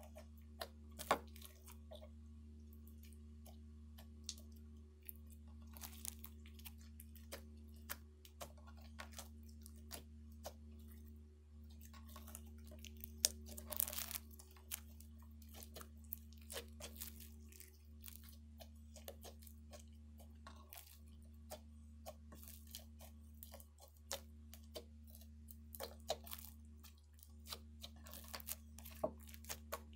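Hands squeezing and kneading a pink slime with foam beads and whole eggs pressed into it: scattered sticky clicks, crackles and pops, busiest and loudest about halfway through. A steady low hum runs underneath.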